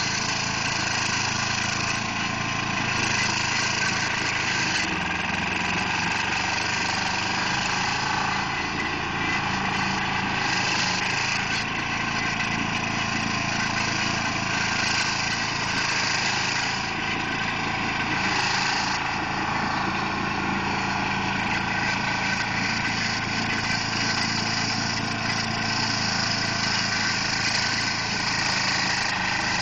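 2004 Carlton SP4012 stump grinder's engine running steadily, with an even, unbroken drone.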